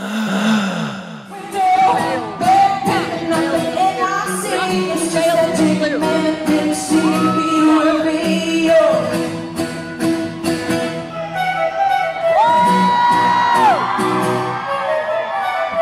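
Live pop concert music: a woman singing over a band with a steady beat, with some crowd cheering. Near the end a single high note is held for about a second.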